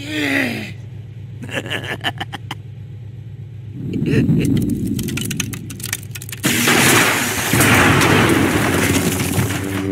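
Film sound effects of a Force blast: a falling tone and a quick run of crackles, then a low rumble about four seconds in and a loud, sustained blast of noise from about six and a half seconds.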